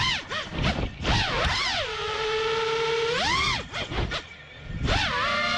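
FPV quadcopter's brushless motors (Lumenier 2206 2450kv, 5-inch props) whining, the pitch rising and falling with the throttle through flips and spins. The pitch holds steady for about a second in the middle, and the whine drops away about four seconds in as the throttle is cut, then spools back up.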